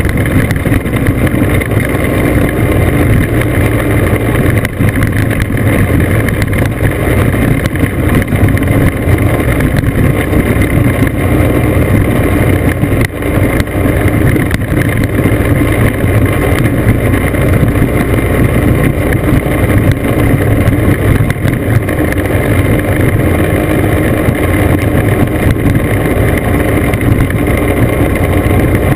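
Classic scooter engine running steadily under way along a gravel road, with wind and road noise on the microphone.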